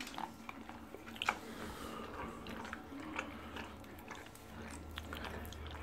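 Dog lapping soup from a bowl: an irregular run of wet tongue smacks and clicks, one louder about a second in.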